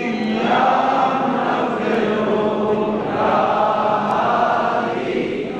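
A group of men's voices chanting together in long held phrases, each about two to three seconds, with short breaks between.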